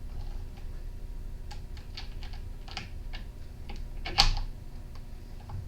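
Light, irregular clicks and taps of a small hand driver and plastic and metal parts being handled while the trimmer is taken apart, with one louder knock about four seconds in.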